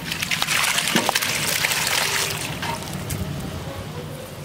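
Par-boiled country chicken and its broth poured from an aluminium pot into a hot iron kadai of frying masala: splashing and sizzling that is loudest over the first two seconds or so and dies down by about three seconds, with a couple of clinks from the pot and spatula.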